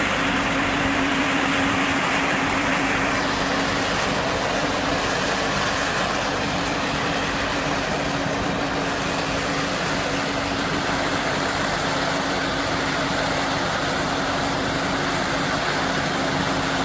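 Stationary baler-wrapper machine running steadily: an even mechanical noise with a constant hum underneath.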